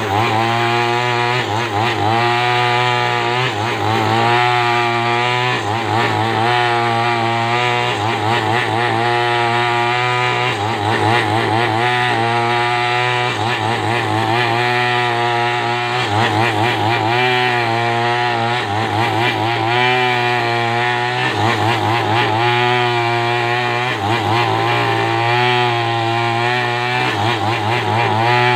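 Two-stroke chainsaw running under load, ripping lengthwise through a coconut-palm trunk to square it into a beam. The engine note wavers up and down continuously as the bar bites and eases in the cut.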